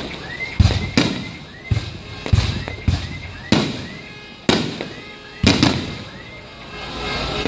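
Aerial firework shells bursting in quick succession: about nine sharp bangs, each trailing off in an echo, with two coming almost together near the end. Faint short rising whistles repeat between the bangs.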